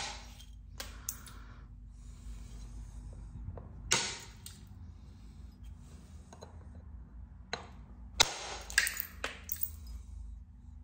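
Percussion flint-knapping: a billet striking the edge of a heat-treated Flint River Chert knife preform, several sharp knocks with a short glassy ring, the loudest about four seconds in and again about eight seconds in, with lighter taps between.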